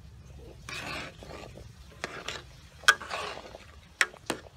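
Metal ladle stirring soup in an aluminium pot: scraping against the pot, with several sharp clinks of metal on metal, the loudest about three seconds in.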